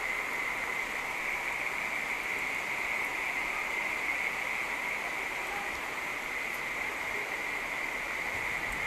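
Rain falling steadily, a continuous even hiss with no breaks.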